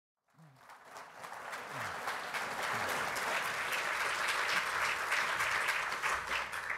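Audience applauding in a hall. The clapping builds up over the first second or so and dies away near the end.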